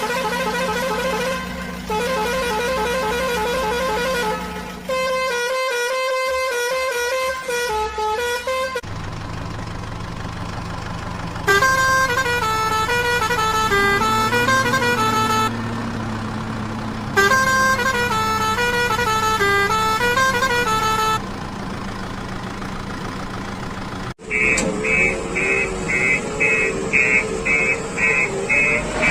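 Electronic sound effects from a toy construction vehicle: tinny horn-like tunes, each played for a few seconds and switching abruptly to the next, then a fast beeping of about two beeps a second near the end.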